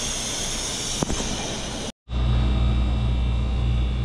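Water hissing and bubbling in an aerated live-crab tank, with a single knock about a second in. After a sudden cut just before halfway, a louder steady low machine hum from the shop's tank equipment.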